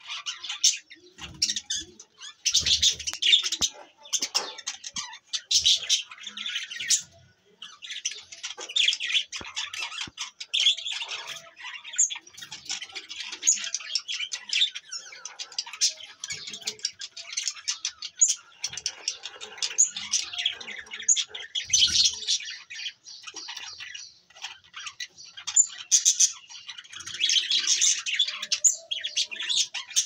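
A flock of budgerigars chattering, many high-pitched chirps and warbles overlapping without pause, swelling into louder spells, with a few soft low thumps.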